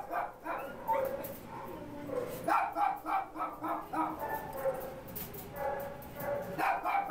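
Small shelter dogs barking and yipping in stacked stainless-steel kennels, short barks following one another over and over. The barking belongs to the fearful, stressed state these dogs are in, which the shelter staff had dismissed as "fine".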